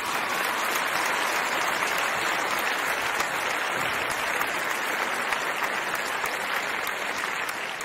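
Applause from many people clapping, steady throughout and easing off near the end.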